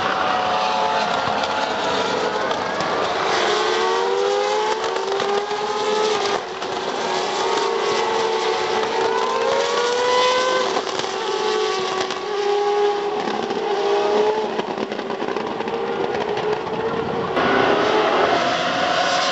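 Several V8 single-seater racing cars running hard past the track edge, their engines overlapping and rising in pitch through the gears, dropping back at each upshift. The engine sound changes abruptly a few times where shots are cut together.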